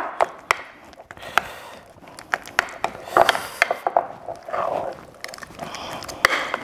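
A metal utensil stirring soft garlic butter in a glass bowl: irregular clicks and taps against the glass, between soft scraping sounds.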